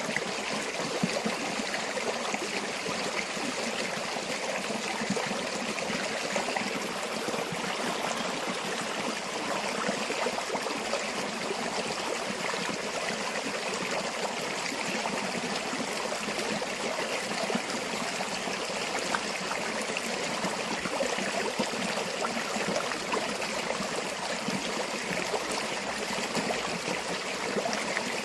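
River or stream water flowing steadily over stones, a continuous rushing and babbling with fine splashing detail.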